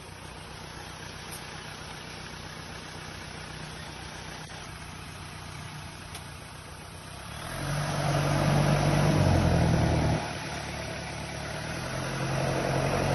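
Off-road 4x4 engine running at a low, steady idle, then revved hard about halfway through for a couple of seconds. It eases off briefly and builds again near the end.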